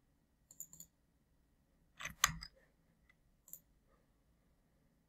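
A few faint clicks of a computer mouse being used. About two seconds in there is a louder knock and clatter.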